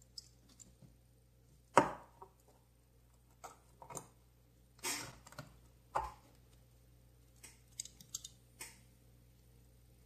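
Small metal clicks and taps from the parts and body of a vintage Ronson gas lighter being fitted together and handled, scattered and irregular, the loudest about two seconds in.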